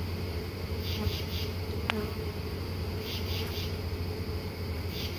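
A mass of honey bees buzzing as a steady low hum around open hives, with night insects chirping in repeated groups of three short pulses about every two seconds.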